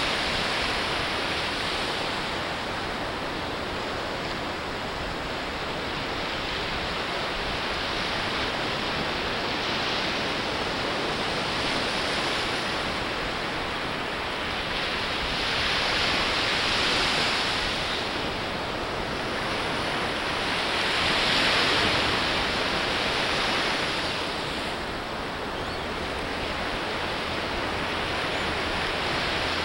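Ocean surf breaking and washing up a sandy beach: a steady rush of water that swells louder as bigger waves come in, most clearly a little past the middle and again about two-thirds of the way through.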